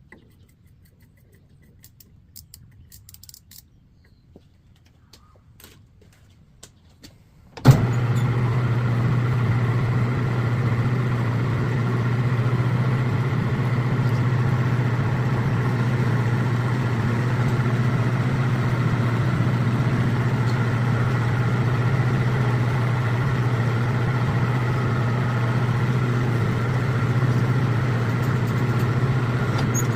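Metal lathe motor switching on after several seconds of faint clicks and handling noises, then running steadily with an even hum during barrel threading. The audio is sped up to double speed.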